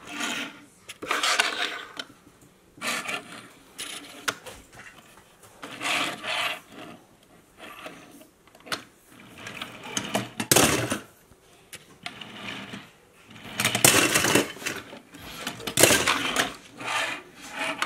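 Die-cast toy cars being pushed along and set down on a hard tabletop: short bursts of wheels rolling and rattling, every second or two.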